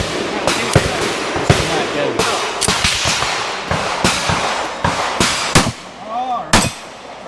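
Pistol gunfire from several shooters on a firing line: sharp, irregular shots, about one or two a second and sometimes overlapping, with voices near the end.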